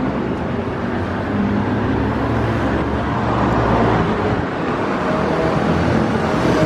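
Steady road traffic: cars and engines running, with a faint rising whine near the end.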